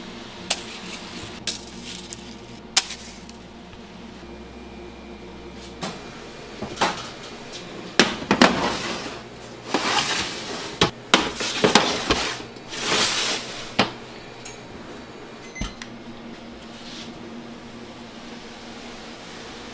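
Metal sheet trays of cake pans knocking and scraping as they are slid into a deck oven, with a few single knocks early on and a busy run of clatter and sliding in the middle, over a steady kitchen hum.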